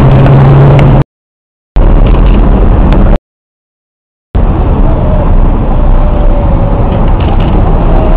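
Loud, steady outdoor noise, likely traffic or wind on the microphone, cut off twice by about a second of dead silence where separate clips are joined.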